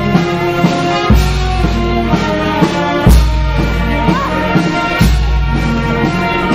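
Brass band playing a slow march, with a bass drum and cymbal stroke about every two seconds, three times.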